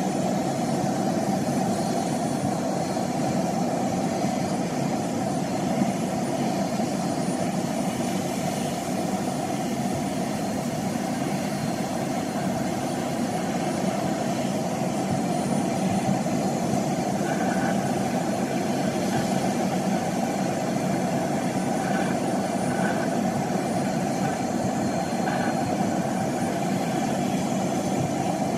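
Steady engine hum at idle, even and unchanging, heard from inside a parked vehicle's cabin.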